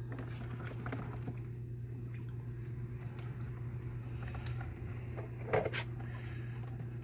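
Faint wet squishing as a coturnix quail's entrails are pulled out of the body cavity by hand, over a steady low hum. There is one short, louder sound about five and a half seconds in.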